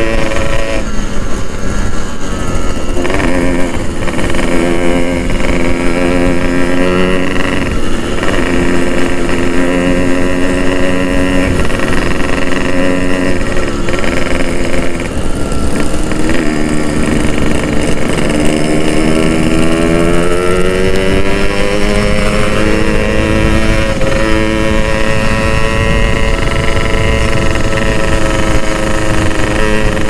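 Two-stroke Yamaha motorcycle engine heard from the rider's seat while riding, revving up through the gears. The engine pitch climbs, then drops at each shift several times, and settles into a steadier cruise in the second half.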